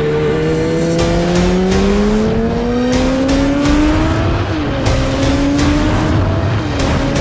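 Kawasaki Z900's inline-four engine accelerating hard, its pitch climbing steadily for about four seconds. The pitch dips at an upshift, climbs again and dips at a second shift near the end.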